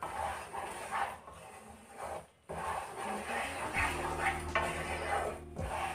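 Wooden spatula scraping and stirring a thick paste of besan roasting in ghee in a non-stick pan, in uneven repeated strokes, with a brief pause a little after two seconds in.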